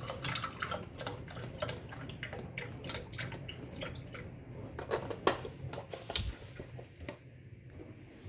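Orange juice being poured into a glass, with small clinks and knocks of glass and kitchenware; a sharper knock about five seconds in and another about a second later.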